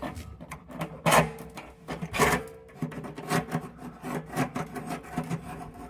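Lower heating element of an electric water heater being worked loose with an adjustable wrench: irregular metal scraping and clicking, with louder grinding strokes about one and two seconds in.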